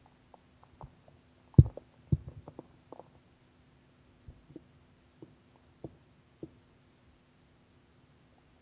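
Empty stomach growling with hunger: a run of short, low gurgles and pops, the loudest about one and a half seconds in, then thinning to scattered small ones. A faint steady hum lies underneath.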